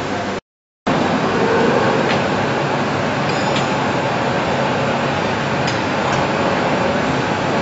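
Steady loud mechanical noise from workshop machinery, with a few faint clicks. The sound cuts out completely for a moment about half a second in.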